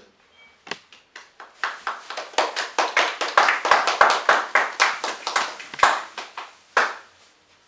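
A group of people applauding. A few scattered claps about a second in build quickly to steady clapping, which dies away shortly before the end.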